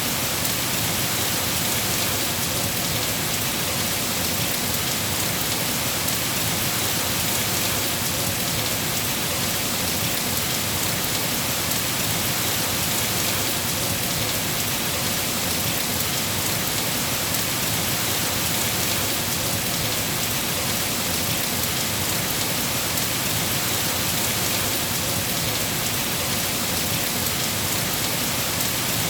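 Steady rain falling, an even hiss with no let-up and no thunder.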